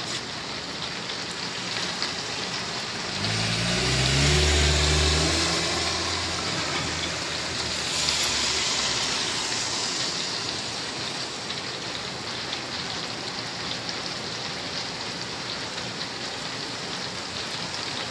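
Steady rain falling on a wet road. About three seconds in a vehicle drives past, its engine hum rising in pitch and its tyres hissing on the wet pavement, fading by about ten seconds in.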